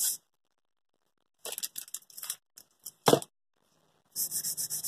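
Very fine sandpaper scrubbing the soleplate of a Philips steam iron in quick back-and-forth strokes, rubbing off old baked-on grime. The strokes stop just after the start, then come a few handling clicks and a sharp knock about three seconds in, and the scrubbing starts again near the end.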